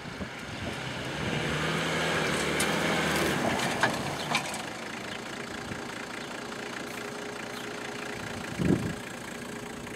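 Land Rover Defender engine revving hard as the 4x4 climbs a steep rocky track, louder for a few seconds, with sharp clicks of stones under the tyres about four seconds in. The engine then settles back to a steadier, quieter running, and a short thump comes near the end.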